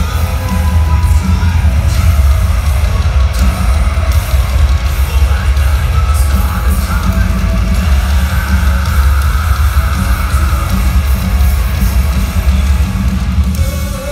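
Live metalcore band playing loud, with distorted electric guitars, drums and bass under yelled and sung vocals, heard from the crowd with a heavy, booming low end.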